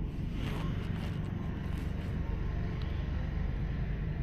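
Steady low background rumble picked up by a phone's microphone, with a few faint rustling scrapes in the first couple of seconds.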